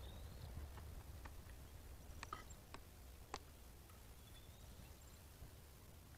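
Near silence: faint low background rumble with a handful of faint, sharp clicks in the first half, the clearest a little past the middle.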